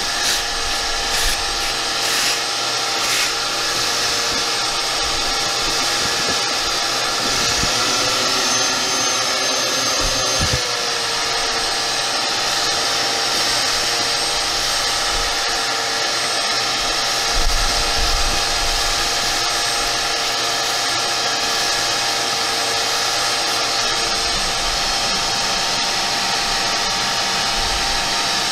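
Shop vacuum running steadily as its hose sucks rodent-nest debris out from around an ATV's drive clutch. There are a few clicks in the first few seconds, and the motor pitch dips briefly about eight to ten seconds in.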